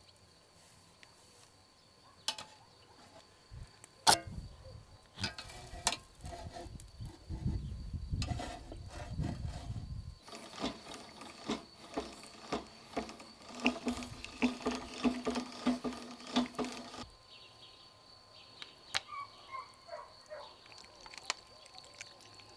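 Steel skewers clanking against a steel barbecue grill, the sharpest clank about four seconds in. Then a hand-cranked chain-and-sprocket rotisserie turns, its chain clicking over the sprockets evenly, somewhat under two clicks a second, for about six seconds.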